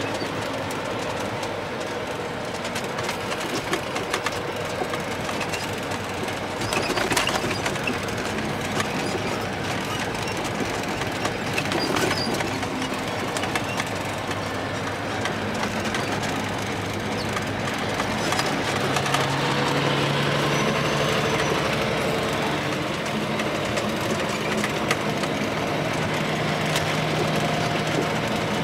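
Semi truck cruising at highway speed, heard inside the cab: a steady mix of engine and road noise, with a few sharp rattles and a low engine hum that grows stronger past the middle.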